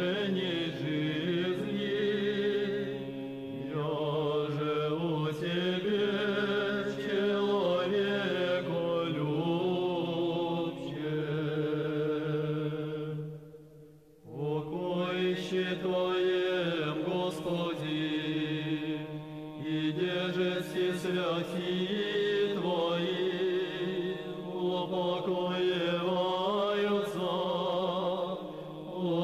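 Men's choir singing Russian Orthodox memorial chant in slow, sustained multi-part harmony. The voices break off briefly about halfway through, then resume.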